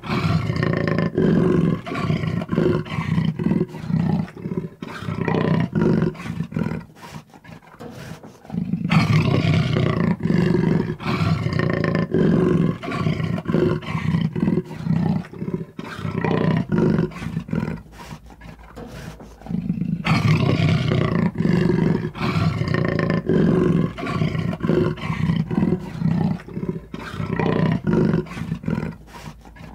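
Jaguar roaring in three long bouts of rapid, rough pulses, with short pauses between them.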